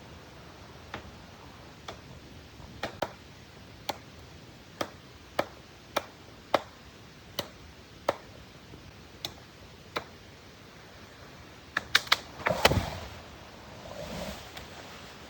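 A series of sharp, single taps or knocks, about a dozen at uneven spacing of roughly half a second to a second. Near the end they come in a quick cluster of louder knocks with a heavier thump, followed by a soft rustle.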